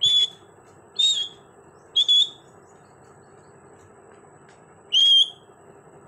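Indian ringneck parakeet giving four short, loud, high-pitched whistled calls. The first three come about a second apart, and the fourth a few seconds later.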